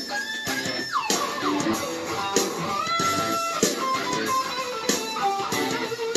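Stratocaster-style electric guitar playing a lead line of held, sustained notes. About a second in, a long note glides down in pitch, and picked notes follow.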